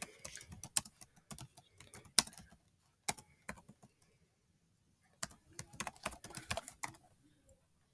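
Typing on a computer keyboard: quick runs of light key clicks, with a pause of about a second and a half in the middle.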